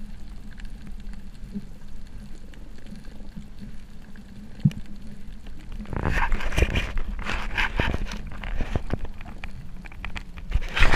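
Underwater sound picked up by a camera's microphone: a low rumble with scattered clicks, then from about six seconds in a denser run of crackling clicks and rasps.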